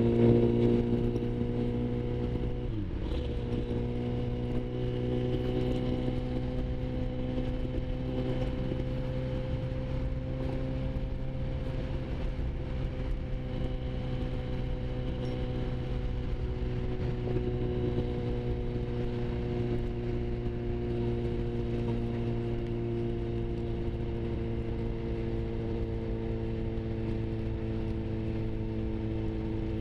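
Sport motorcycle engine running steadily at highway cruising speed, heard from on the bike. The revs drop sharply and recover about three seconds in, then hold steady with only slow small changes in pitch.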